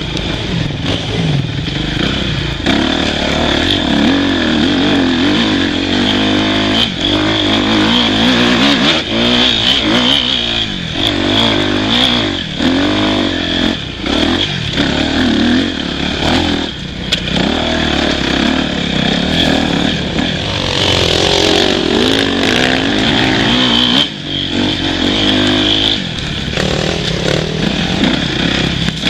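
Dirt bike engine being ridden hard along a rough trail, revving up and down over and over as the throttle opens and closes.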